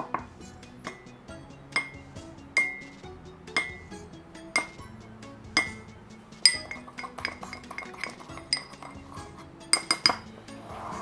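A small metal measuring spoon clinking against a ceramic bowl as dry seasoning powders are measured in and stirred, with repeated clinks and a quick run of them near the end. Background music plays underneath.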